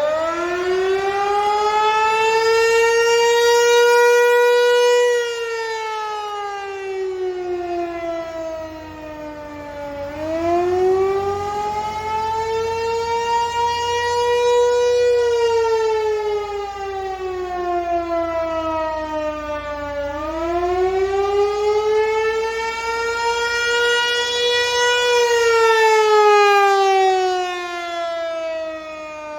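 Federal Signal 508-128 outdoor warning siren winding up and sounding a wail, its pitch slowly rising and falling about three times, roughly every ten seconds. This is the wavering pattern of the attack signal.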